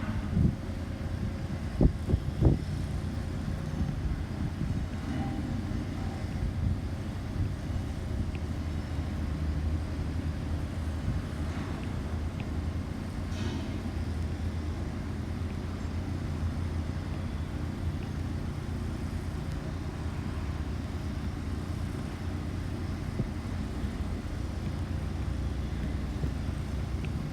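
Steady low rumble of city traffic, with a few sharp knocks in the first couple of seconds.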